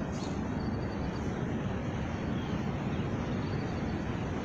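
Steady low rumbling outdoor background noise with no distinct events.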